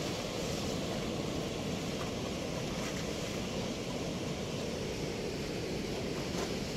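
Steady rush of water pouring through a weir's sluice gate, an even, unbroken noise.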